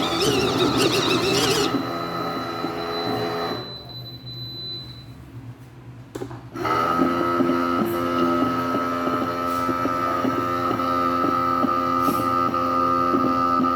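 Motor of a Ucclife 1.5 kg mini washing machine running with a hum. It stops about three and a half seconds in and starts again about three seconds later with a steadier, higher whine: a stop-start in the wash cycle.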